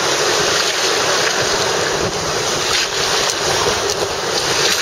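Whitewater rushing and splashing around an inflatable raft as it runs a rapid: a loud, steady roar of water with no break.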